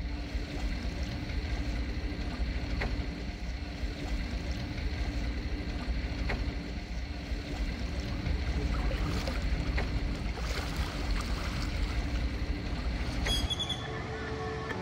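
Steady low rumble of a sailboat under way, water and wind rushing past, with wind buffeting the microphone; the rumble cuts off about a second before the end.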